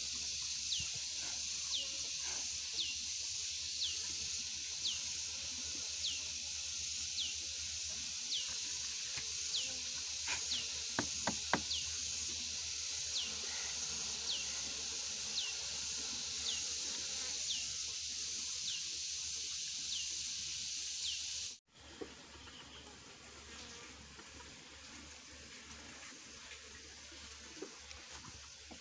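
Steady high-pitched insect drone with a short falling chirp repeating about once a second, and a few light wooden knocks from hive frames being handled about a third of the way in. The sound drops abruptly to a quieter level about three-quarters of the way through.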